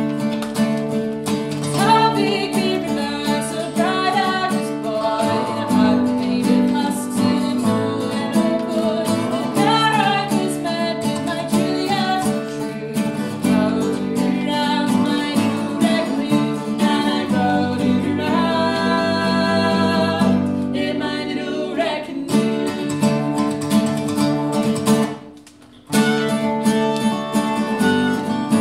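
Live acoustic folk trio playing: steel-string acoustic guitar, fiddle and dobro, with a woman singing the melody. Near the end the music stops dead for about a second, then all come back in together.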